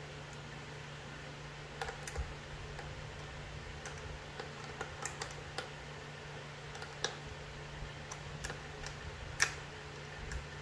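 Scattered, irregular light clicks and taps of a small socket ratchet and cable ring terminals being handled at a motorcycle battery terminal, with one sharper click near the end, over a steady low hum.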